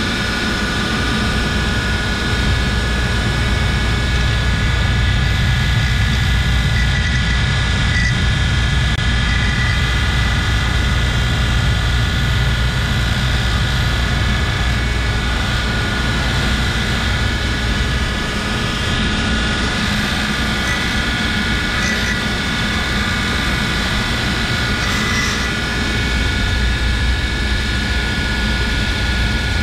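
Bench grinder running steadily, a steady hum with a high whine, as water-pump bolts are held to the wheel to clean their threads.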